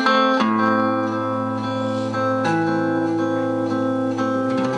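Acoustic guitar strummed, its chords left to ring, with the chord changing about halfway through.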